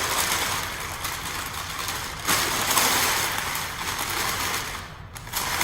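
Packing paper rustling and crinkling as it is wrapped around by hand, growing louder a little over two seconds in and easing off briefly near the end.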